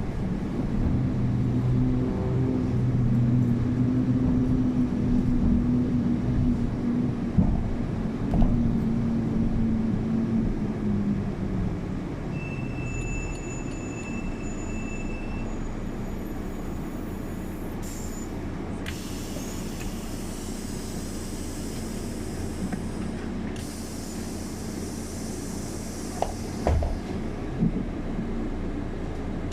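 Inside a city bus on the move: a low drivetrain hum that falls in pitch as the bus slows about ten seconds in, then a high steady squeal for about three seconds. In the second half come two long loud hisses of compressed air, typical of the air brakes and doors as the bus halts at a stop.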